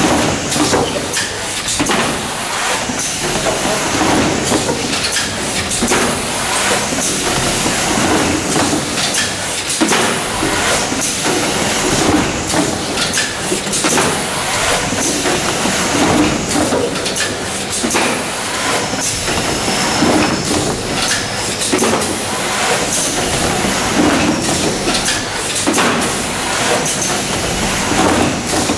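Automatic carton erector running at about 15 cartons a minute: a steady mechanical clatter of its arms and cardboard, with clacks and short hisses repeating about every two seconds as each flat carton is pulled from the magazine and folded open.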